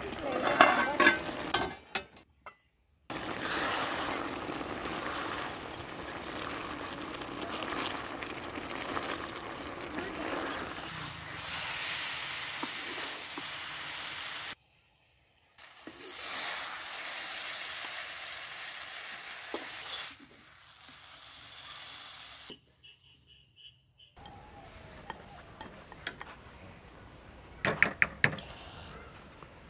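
A wooden spatula stirring and scraping pieces of ash gourd in a steaming aluminium pot, with the steady bubbling hiss of the cooking; the loudest clattering comes in the first two seconds, with short silent gaps between stretches. Near the end there are a few sharp clinks of a fork against a glass bowl.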